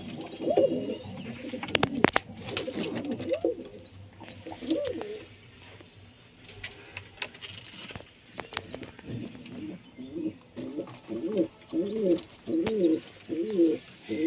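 Desi highflyer (Kalduma) pigeons cooing in their loft: a few scattered coos at first, a quieter stretch in the middle, then a run of rhythmic cooing, about two coos a second, from about ten seconds in.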